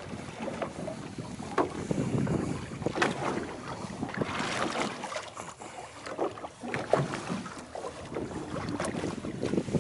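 Wind buffeting the microphone, with sea water sloshing against a boat's hull and scattered sharp knocks.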